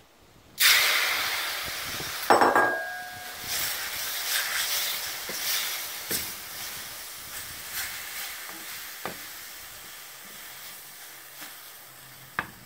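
Wet konjac spaghetti sizzling as it hits a hot stainless steel frying pan, the hiss starting suddenly and fading slowly as the noodles cook. A wooden spatula knocks and scrapes against the pan as they are stirred, with a ringing metallic clank about two seconds in.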